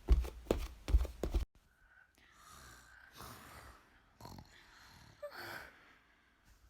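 A quick run of knocks and bumps for about a second and a half that stops abruptly, then faint breathy sounds like soft sighs or exhaled breaths.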